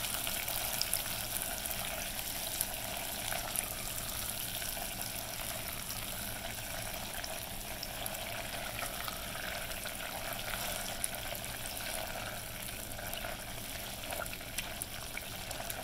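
Hot peanut brittle sugar syrup sizzling steadily around a melting stick of butter, with the soft, sticky sound of a silicone spatula stirring it in a glass bowl.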